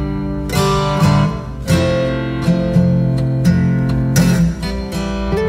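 Background music of strummed acoustic guitar.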